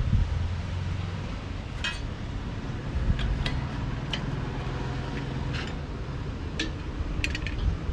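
Scattered light metallic clinks, about eight spread over several seconds, as the brush cutter's 80-tooth blade, washer and nut are handled and fitted onto the cutter head. A low wind rumble on the microphone runs underneath.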